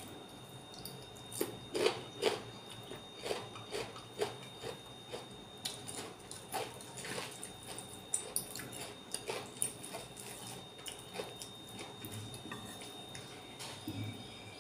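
Close-up crunching and chewing of raw cucumber slices, a run of sharp crisp crunches that is thickest about two seconds in and then thins to scattered chews. A faint steady high whine runs underneath.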